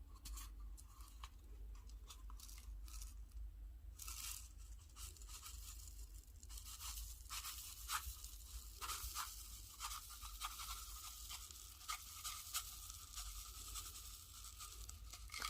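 Hands squeezing and stretching green pearl slime, making a run of small sticky crackles and pops that grows much busier about four seconds in.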